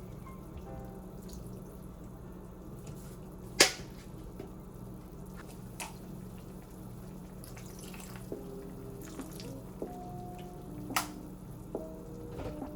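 Soft background music over kitchen sounds, with a few sharp clicks or knocks, the loudest about three and a half seconds in and another near eleven seconds.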